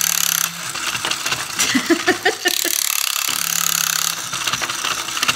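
Small electric motor and plastic gear mechanism of a toy horse running, a low steady hum under a fast plastic clatter as its bare, hot-glue-repaired legs step and its tail wags. The hum drops away for about three seconds, and a short pitched, wavering sound comes about two seconds in.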